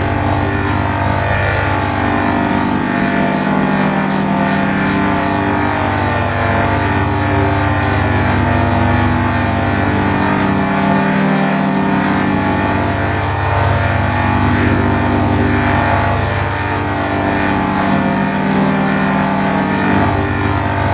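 A loud, dense drone of many steady tones stacked on top of each other, shifting slowly in pitch and strength: a 'G Major' audio edit, with a sound layered in several pitch-shifted copies.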